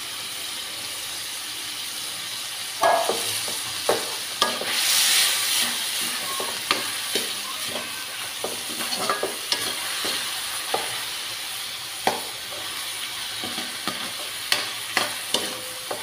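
Ground meat sizzling steadily in hot oil in a wok. From about three seconds in, a spatula stirs it, scraping and knocking against the pan many times, and the sizzle swells briefly as the meat is turned.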